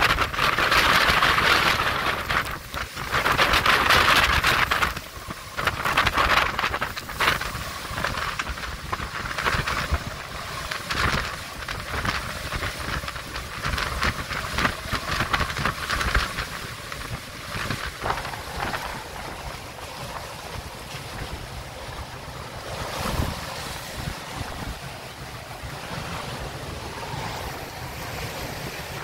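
Hurricane-force wind blowing across a sailboat's cockpit and rigging, buffeting the microphone in gusts. The strongest gusts come in the first few seconds, then it settles into lighter, rapid gusting with sea noise underneath.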